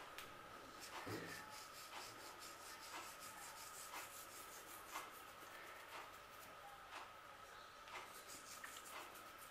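Faint rubbing and soft taps of a metal spoon spreading and pressing diced cooked chicken breast into a flat layer, about one tap a second.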